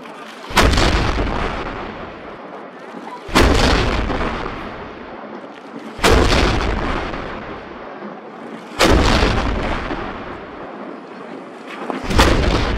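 Wheeled saluting cannons firing blank gunpowder charges one after another: five loud blasts about three seconds apart, each trailing off in a long rolling rumble.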